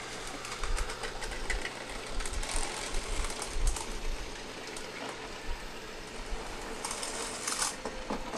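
Roborock S7 robot vacuum driving onto its auto-empty dock: a busy mechanical running sound with many small clicks and knocks from its wheels and body as it docks, and a brief hissing burst about seven seconds in.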